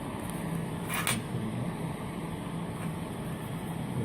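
Steady low mechanical hum with a short hiss about a second in.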